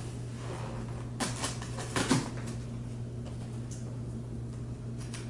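A few light clicks and knocks from a cardboard box being handled, the clearest about a second and two seconds in, over a steady low hum.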